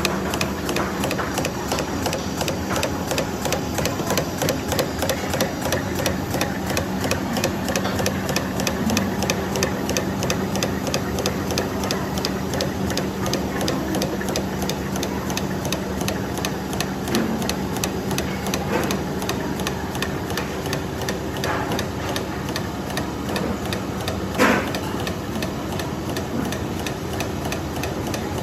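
Dough-ball cutting and rolling machine running, with a fast, even mechanical clatter over a steady hum. One louder knock comes near the end.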